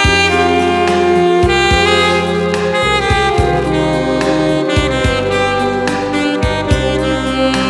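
Alto saxophone playing a slow melody of long held notes over a backing track with bass and a steady beat.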